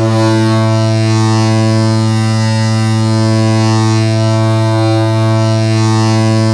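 Seattle Kraken goal horn sounding one long, low, steady blast.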